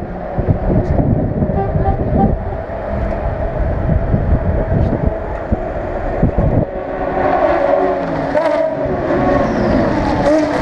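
Race car engines running on the circuit around the pit lane, over a low rumble and scattered knocks. About seven seconds in, a steady multi-toned engine note comes up louder.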